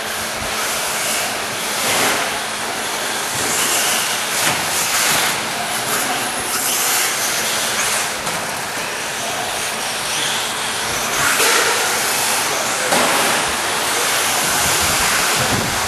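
Radio-controlled cars running on an indoor dirt track: a steady hissing, whirring noise that swells and falls back in surges several times.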